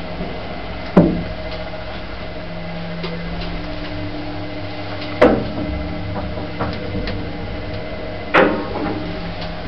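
Old 1970s Wadsworth lift running: a steady mechanical hum, broken by three sharp clunks about a second in, past the middle and near the end.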